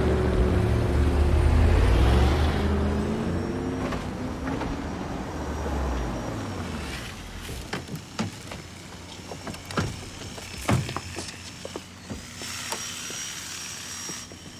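Background music score through the first half, fading out about six seconds in. It gives way to quieter outdoor ambience with scattered sharp clicks and knocks and a faint steady high whine.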